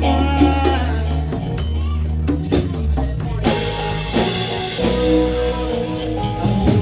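Live band playing: electric bass guitar holding deep notes under drum kit and hand percussion, with some singing over the top.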